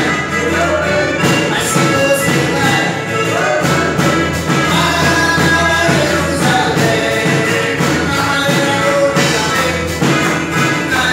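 Live church band playing a song: electric guitar, keyboard and drum kit, with a man and a woman singing.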